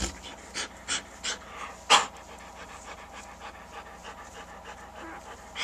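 German Shepherd mother panting while whelping, in quick breathy puffs about three a second, the loudest about two seconds in, then fewer and quieter.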